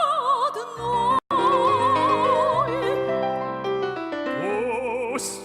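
Operetta singing with instrumental accompaniment: a woman's voice holds long notes with wide vibrato. The sound cuts out completely for a split second about a second in.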